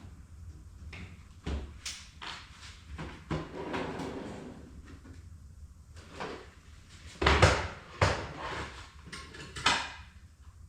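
Scattered knocks and clunks of tools and sheet metal being handled in the shop, the loudest about seven seconds in.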